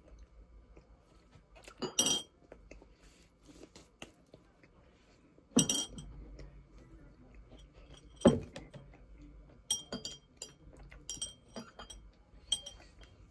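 Tableware clinking, with a short ring after each hit. Three sharp clinks come about two, five and a half and eight seconds in, then a quicker run of lighter clinks near the end.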